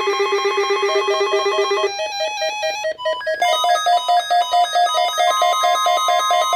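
Electronic beeping melody: rapidly pulsing synthesized tones, ringtone-like, that shift to new pitches twice, with a short break about three seconds in.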